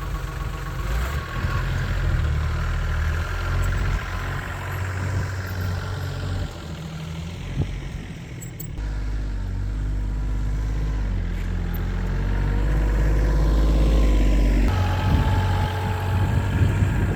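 A vehicle engine running while being driven, its pitch shifting up and down in steps and glides.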